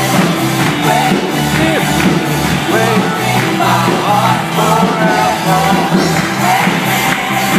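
Live rock band playing loud, with electric guitars, drums and sung lead vocals over a steady beat.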